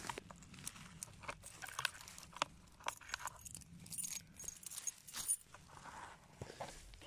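Metal clicking and clinking as a bent wire locking pin and a steel plate on a concrete pipe trap are handled, with rustling of dry grass. A few of the clinks ring briefly about four to five seconds in.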